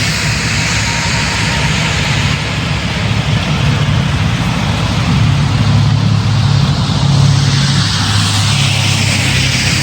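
Idling semi-truck diesel engines giving a steady low drone that grows a little louder around the middle, under a rushing hiss that swells and fades.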